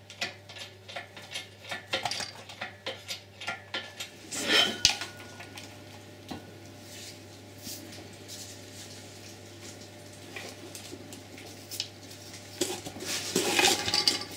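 Metal clinks, knocks and scrapes as an automatic gearbox is rocked and slid apart from the engine. Quick clinks come in a run over the first few seconds, with a louder scrape about four and a half seconds in and a denser clatter near the end.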